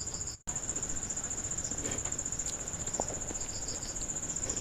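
Crickets chirring steadily as a high, finely pulsed trill, with a few faint clicks of hand-eating and chewing on top. The sound drops out for a moment about half a second in.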